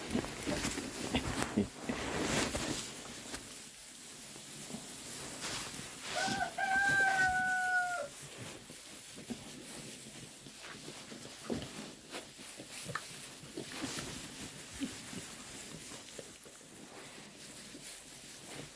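Oxford Sandy and Black piglets moving about and rooting in straw bedding, a rustling noise with scattered clicks. About six seconds in comes one long, clear, held call that lasts about two seconds and drops in pitch at the end.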